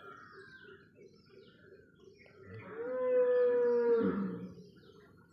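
One long, low moo-like animal call lasting about a second and a half, starting a little past halfway, over faint scattered bird chirps.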